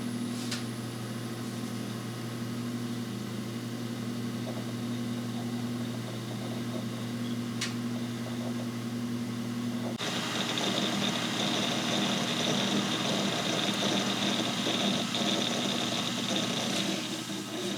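Old Mac Pro desktop computer running during a slow start-up: a steady mechanical hum from its fans and drives. About ten seconds in it turns louder and more hissy, with a high whine added.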